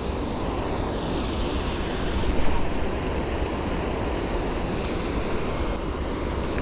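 Steady wind noise buffeting the microphone, an even hiss with a low rumble and no distinct events.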